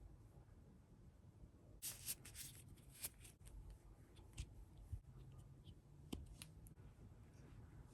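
Faint rustling and small clicks from hands handling toy packaging, with a short cluster of crinkles about two seconds in and a few separate ticks after it.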